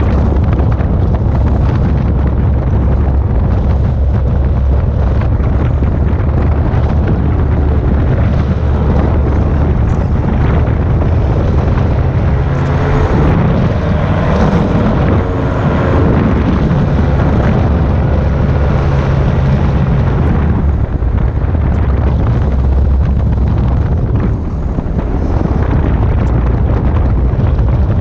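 Airwolf powered parachute's engine and propeller running steadily in flight, its note shifting for a few seconds about halfway through, with wind rushing over the microphone.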